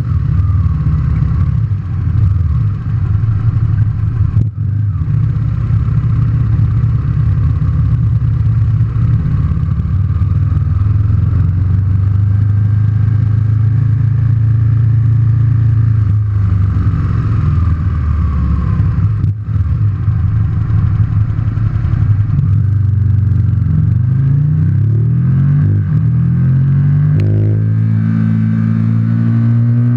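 Aprilia RSV 1000 Factory's V-twin engine heard from the rider's seat, running steadily at low revs while the bike rolls out. From about 23 seconds in it accelerates hard, with several rising sweeps in pitch as it pulls up through the gears.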